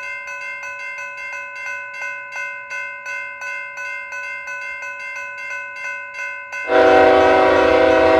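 Railroad crossing bell ringing in quick, even strokes. About two-thirds of the way through, a loud train horn blast joins it and cuts off at the end.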